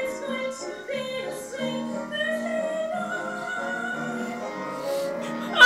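Background music with held, overlapping notes.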